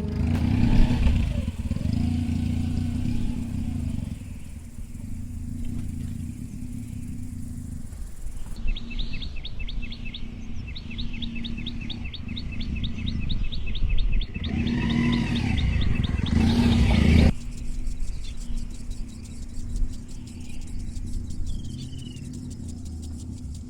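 Motorcycle engine running steadily. Through the middle stretch a bird sings a fast run of repeated high chirps over it.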